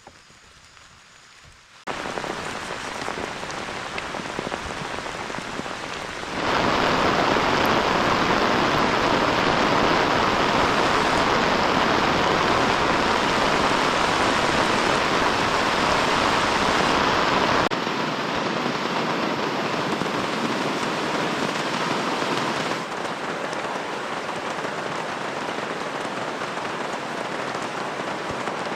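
Heavy rain falling steadily. It starts faint, grows abruptly louder about two seconds in and again a few seconds later, then drops back in steps in the second half.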